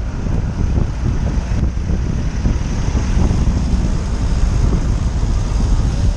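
Motorcycle riding slowly through city traffic, heard from a camera mounted on the bike: a steady low rumble of engine and wind on the microphone, with traffic noise around it.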